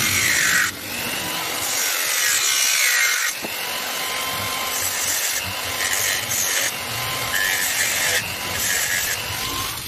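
Electric angle grinder with a thin cutting disc running and cutting lengthwise through PVC pipe wall, in several passes. The motor whine stays steady while the cutting noise comes and goes, and the pitch sinks where the disc bites into the plastic.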